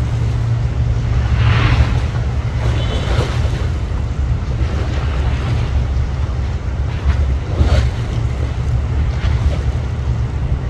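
Low, steady rumble of high-speed ferry diesel engines, with water sloshing and wind buffeting the microphone in short surges every second or two.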